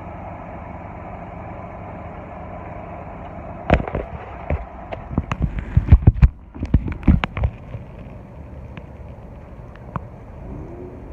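Steady street traffic noise, broken about a third of the way in by a burst of sharp knocks and clicks lasting about four seconds.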